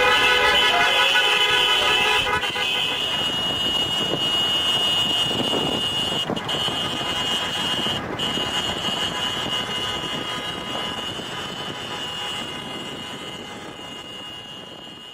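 A vehicle horn held for about the first two seconds, then steady traffic and road noise from a moving vehicle on a highway, slowly fading out.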